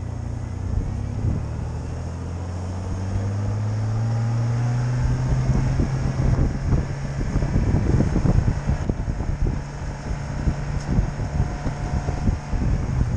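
Vehicle engine accelerating, its pitch rising over the first few seconds, then heavy wind buffeting the microphone as the vehicle drives through snow.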